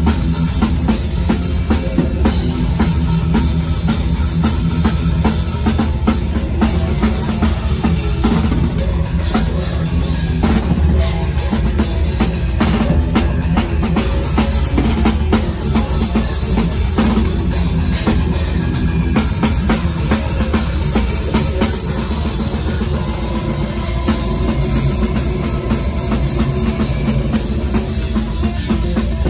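A technical death metal band playing live at full volume: distorted electric guitars and bass over fast drumming with heavy bass drum and cymbals. It is heard up close from the front row, loud and continuous without a break.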